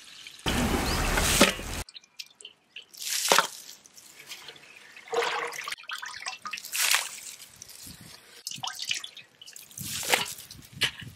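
Water pouring out of a large metal cooking pot onto the ground, a steady splash lasting about a second and then stopping abruptly. After that come several separate short wet splashes and slaps as raw chicken pieces are handled and dropped into a steel bowl.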